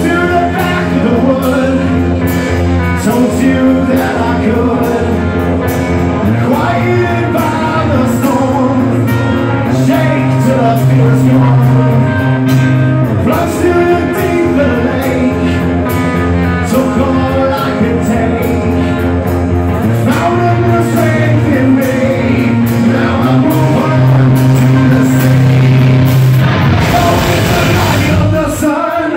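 Live rock band playing: a male lead singer over electric guitar, bass guitar and drums.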